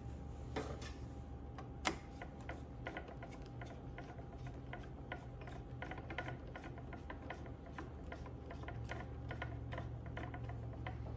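Ratcheting torque wrench clicking in a quick, uneven run of light ticks as it turns the rear brake caliper's retaining pin home, tightening it toward 7.4 lb-ft (10 N·m).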